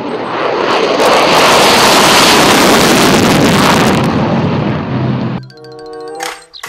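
F-16 fighter jet taking off with its afterburner lit: a loud rushing jet roar that swells about a second in and dies away after about four seconds.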